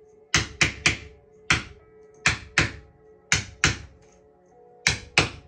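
A wooden mallet tapping a wedge to drive pressed cane webbing down into the groove around a chair seat: about ten sharp taps, mostly in quick pairs, over faint background music.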